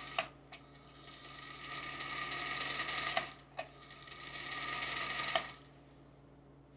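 Singer Featherweight 221 sewing machine's electric motor running the machine in two runs: the first grows louder and stops just after 3 seconds, the second starts half a second later and cuts off about 5 seconds in.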